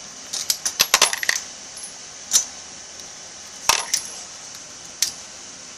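Light metallic clinks of brass pistol cases being handled and worked through a lever-operated depriming tool as spent primers are punched out. A quick cluster of clinks comes in the first second and a half, then single clinks about every one to one and a half seconds.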